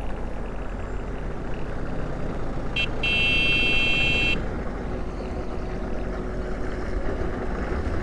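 Fat-tire electric bike rolling downhill over stony gravel, with steady wind noise and tyre rumble. About three seconds in, a high brake squeal sounds briefly, then holds for just over a second.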